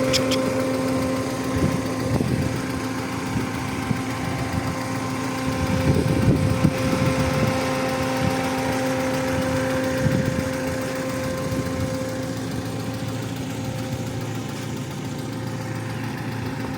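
Audi 80 B4's 2-litre single-point-injection four-cylinder petrol engine idling steadily, with a light ticking knock from the hydraulic valve lifters that the owner takes for worn lifters.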